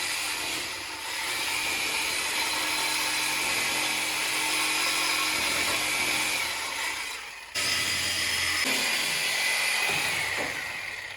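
Power tool cutting through the steel exhaust pipe at the tips, running steadily with a high whine. It cuts out for a moment about seven and a half seconds in, starts again, and winds down near the end.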